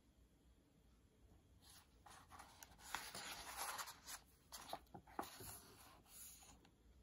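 Paper rustling as a large hardcover picture-book page is turned by hand and then smoothed flat, with small crackles. It starts a couple of seconds in and lasts a few seconds.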